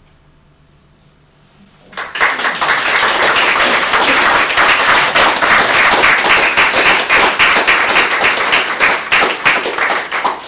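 Audience applauding, starting suddenly about two seconds in, holding steady, and dying away near the end.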